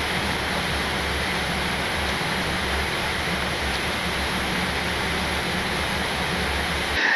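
Steady rushing air noise on an airliner's flight deck in flight: airflow over the nose and windscreen, with a low rumble beneath. It stops abruptly near the end.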